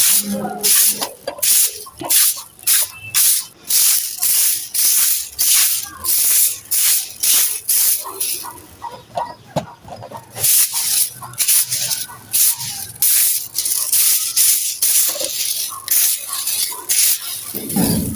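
Dry, gritty sand cement being crumbled and scraped, a quick run of crunchy, hissing strokes about two a second, with a brief softer lull about halfway through.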